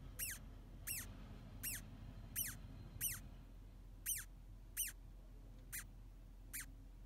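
A Rhodinia fugax (ustabiga) larva squeaking inside its cocoon: nine short, high squeaks, each falling in pitch, coming a little less than one a second at uneven intervals. Each squeak is not a voice but air forced out through a pair of spiracles on the first abdominal segment, a defensive threat given when the cocoon is jostled.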